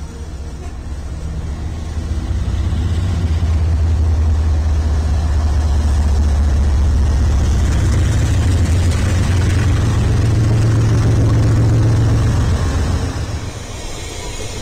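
Diesel-electric freight locomotives passing close by: a loud, low engine drone that builds over the first couple of seconds, holds, and falls away quickly near the end.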